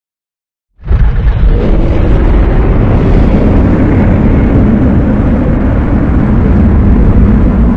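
Godzilla film sound effect, pitch-altered: a loud, deep rumbling blast that starts abruptly about a second in and holds steady for several seconds.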